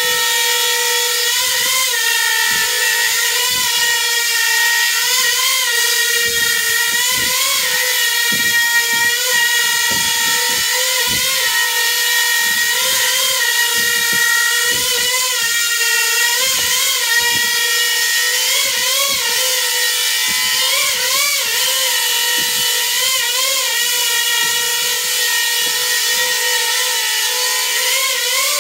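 Small coaxial copter's electric motors and propellers whining steadily in hover, the pitch wavering up and down every second or two as the flight controller twitches the craft during an ArduPilot AutoTune. Irregular low buffeting runs under the whine.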